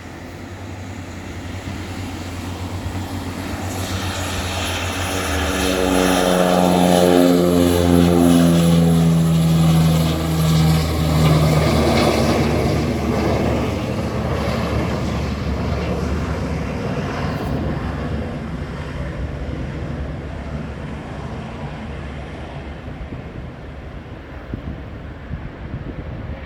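Antonov An-24's twin turboprop engines on departure, growing louder as the aircraft approaches. The propeller tone drops in pitch as it passes about seven to eleven seconds in, then fades away.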